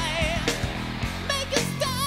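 Hard-rock studio recording: a lead vocal holds sliding, wavering notes over electric guitar, bass and a drum beat of about two hits a second.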